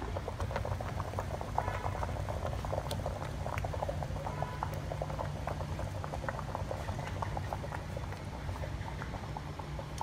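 Water boiling in a stainless steel steamer pot on a portable gas stove, steaming a stuffed pumpkin: many small bubbling pops over a steady low rumble.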